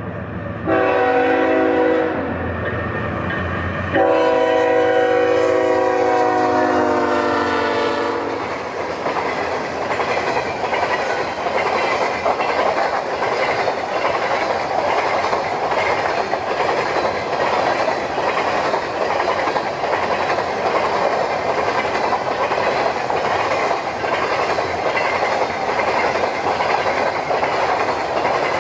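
Diesel freight train locomotive horn: a short blast, then a long blast about four seconds in. The locomotives and a long string of empty covered grain hopper cars then roll past with a steady rumble and clickety-clack of wheels over the rail joints.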